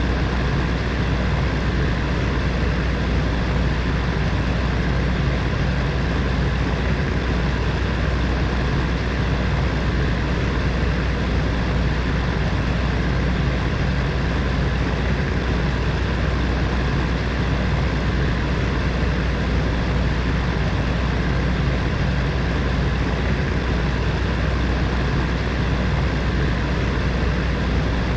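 Electric heater fan running steadily: an even rush of air over a low hum, with no change in speed.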